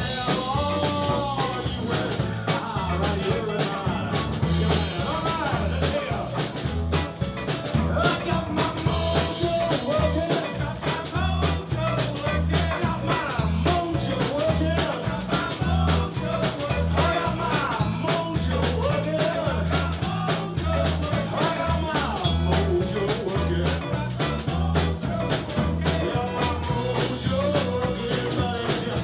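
Live blues band playing: electric bass, electric guitar, drums and keyboard over a steady beat, with a lead line that slides up and down in pitch.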